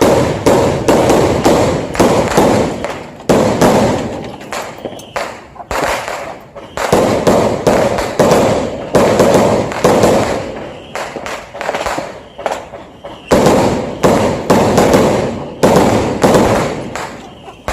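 New Year fireworks going off in rapid succession: dense volleys of bangs and crackles, each with a short echoing tail, swelling into loud clusters every few seconds.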